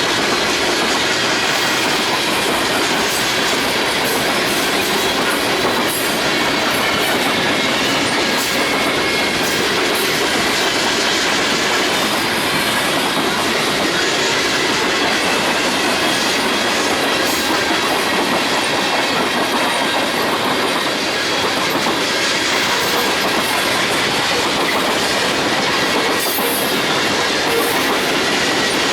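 A train rolling past close by, its wheels running steadily over the rails with some clicking and a faint high-pitched ringing squeal from the wheels.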